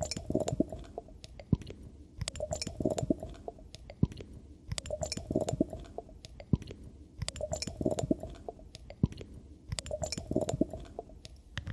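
Small clicks, taps and rustles of hands handling a glass test tube and dropper on a glass-topped table while measuring out Benedict's solution.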